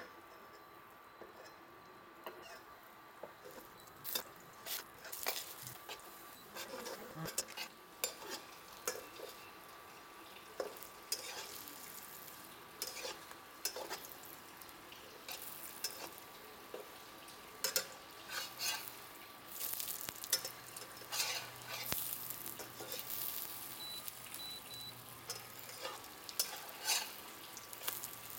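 Paratha frying in oil in a black iron wok: a steady sizzle, with repeated clicks and scrapes from a metal spatula pressing the bread against the pan, starting about four seconds in.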